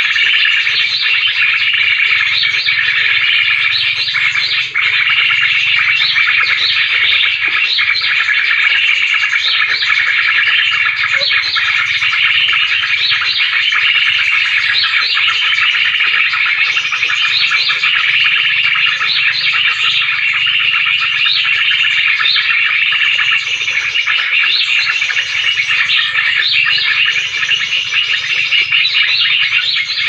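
Dense, continuous bird calling: many short, repeated chirps and whistles over a steady high-pitched chatter.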